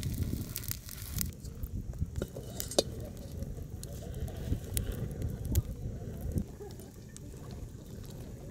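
Campfire of dry leaves and twigs crackling, with scattered sharp snaps and pops over a steady low rumble.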